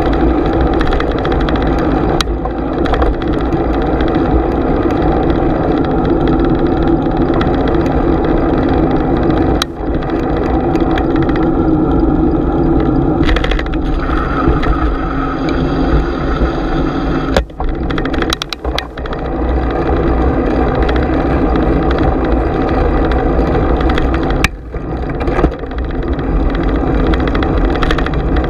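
Bicycle riding noise picked up by a GoPro: a loud, steady rumble and rush of wind and tyres, dropping briefly about ten, eighteen and twenty-five seconds in.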